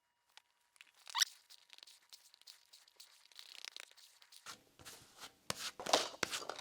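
Body filler being scraped and worked with a spreader: scattered short scraping, crunching strokes and clicks, growing more frequent and louder over the last two seconds.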